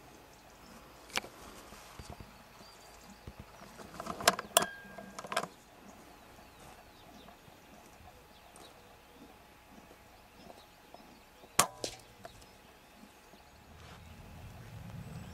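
Weihrauch HW100 PCP air rifle with sharp cracks and clicks, the loudest a tight pair about four seconds in and another about twelve seconds in. A fainter click comes just after the first second.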